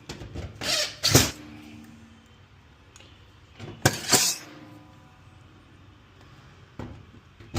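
Clunks and rattles of the washer's sheet-metal panels and fittings being handled and put back during reassembly, in two short bursts about a second in and about four seconds in, with a lighter knock near the end.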